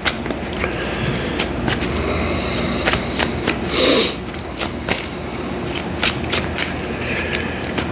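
Tarot cards being shuffled by hand: a continuous rustle with many quick card clicks, and one louder flurry about four seconds in.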